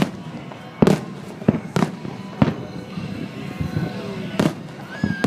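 Aerial fireworks shells bursting: about seven sharp booms at irregular intervals, the loudest about a second in.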